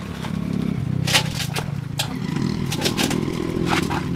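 A motor running steadily, with scraping and a series of sharp knocks and clatter over it.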